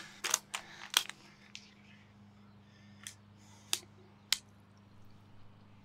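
A quick run of sharp clicks and taps, then a few single clicks spaced about half a second to a second and a half apart, over a steady low hum.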